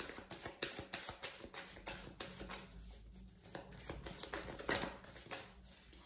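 Oracle cards being shuffled by hand: a faint, irregular run of quick card clicks and slaps.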